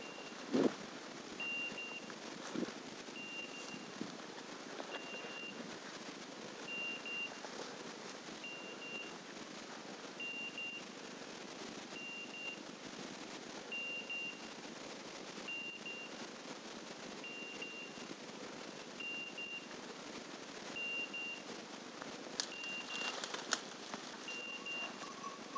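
A setter's beeper collar sounds a short high beep about every second and a half, faint across the wood. Footsteps crunch through dry leaves and snap twigs, louder about half a second in and near the end.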